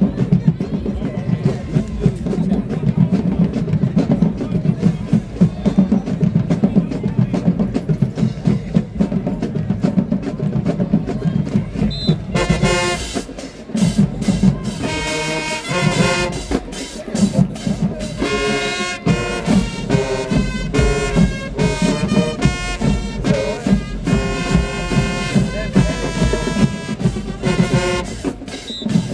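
High school marching band playing: the drumline carries a dense rhythm alone for about twelve seconds, then the brass section comes in with loud, punchy horn chords over the drums.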